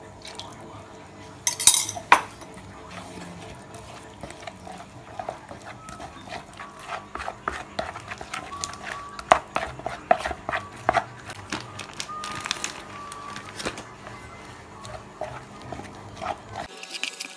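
A metal spoon scrapes and knocks against a glass bowl as a liquid mixture is poured into flour, with the sharpest knocks about two seconds in. Then a wooden spoon stirs thick batter in a plastic mixing bowl, with repeated light scrapes and knocks.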